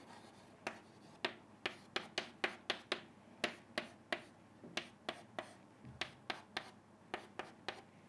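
Chalk clicking against a chalkboard while writing: a run of sharp, irregular taps, about three a second.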